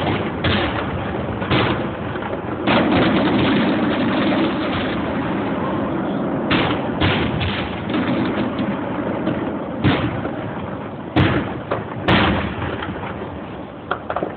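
Fireworks going off: a string of sharp bangs at uneven intervals over a constant noisy background, with the two sharpest bangs near the end, about a second apart.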